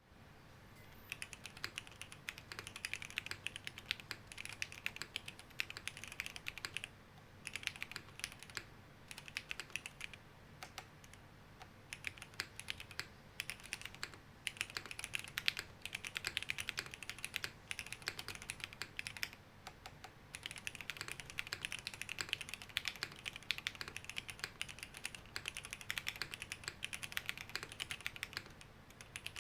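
Typing on a custom mechanical keyboard with Cherry HB switches, Cherry stabilisers and a sandwich mount: fast runs of key clacks in bursts, broken by short pauses.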